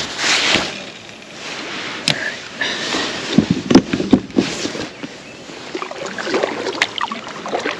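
A rod being cast with a short swish at the start, then a kayak paddle dipping and pulling through calm water: uneven swishes and splashes of the blades, with a few knocks around the middle.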